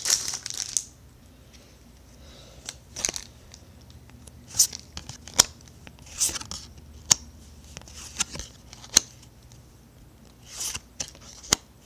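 Yu-Gi-Oh booster pack being opened and its cards handled: crinkling and tearing of the foil wrapper, then scattered rustles and a series of sharp snaps as the cards are flicked through.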